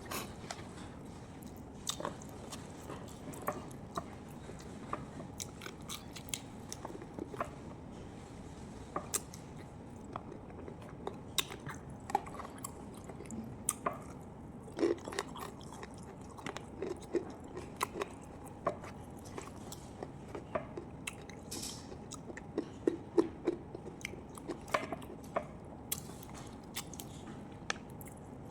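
A person eating close to the microphone, biting and chewing food in a mukbang, with many irregular short sharp clicks and smacks.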